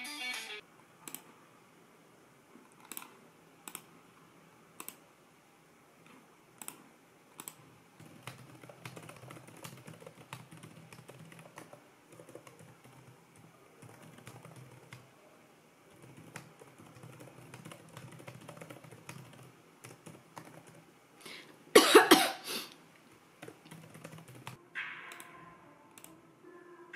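Computer mouse clicks and laptop keyboard typing: single clicks spaced a second or so apart, with a denser run of typing in the middle. One short, loud burst of noise comes late on.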